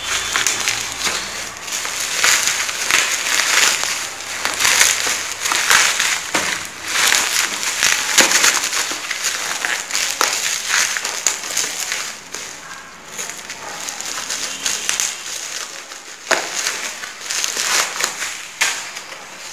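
Plastic packaging wrap being torn and crumpled by hand off a cardboard tripod box, a dense run of crackling and crinkling that thins out in the last third.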